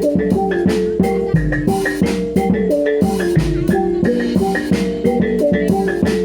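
Javanese gamelan ensemble playing reog music: metal percussion ringing short pitched notes in a steady, quick rhythm over drum strokes, with a deep low stroke about every two seconds.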